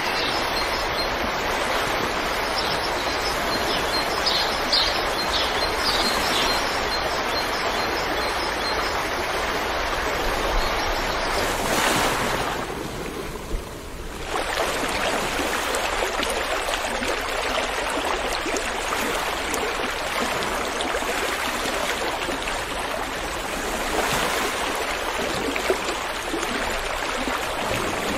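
Ocean surf ambience: a steady wash of breaking waves, dipping briefly about halfway through, with faint bird chirps in the first few seconds.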